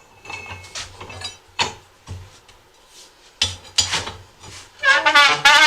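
Clinks, knocks and scraping of a hand tool on the metal centre post of a manual tire changer as the ATV rim's hold-down is tightened, with a brief squeak about five seconds in.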